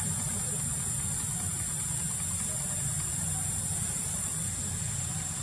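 Steady, high-pitched drone of insects in the forest, over a low rumble.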